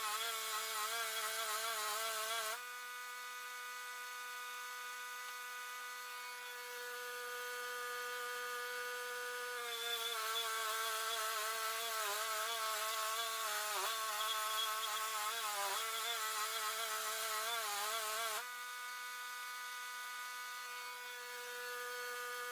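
Wood-Mizer LT10 bandsaw mill running while milling black walnut: a steady pitched motor hum whose pitch wavers and dips while the blade is loaded in the cut. It goes quieter and steadier about two seconds in, louder and wavering again from about ten seconds, and quieter and steadier again near the end.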